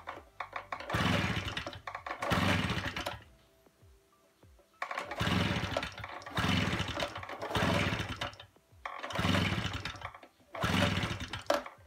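Recoil starter on a STIHL SR 5600 backpack mist blower's two-stroke engine pulled about seven times, each pull a brief whirr of under a second with short pauses between. The engine switch is off, so it turns over without firing: cranking to warm and prime it before a real start.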